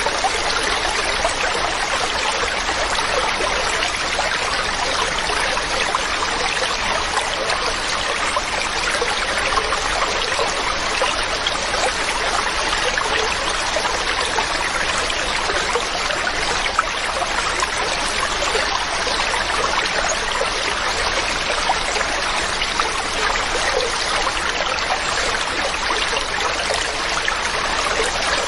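Mountain stream running over rocks: a steady rushing and splashing of water with fine trickling detail, even in level throughout.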